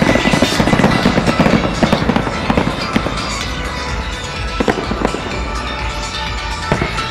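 Aerial fireworks bursting: a dense run of crackling bangs in the first two seconds or so, then single bangs every second or two, over music with a steady bass.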